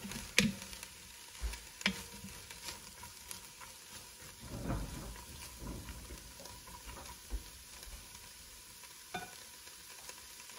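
A wooden spoon stirs diced red onion in an enamelled cast-iron pot, scraping and knocking against the pot, with a faint sizzle underneath. The sizzle is the onions dry-sautéing before any oil is added.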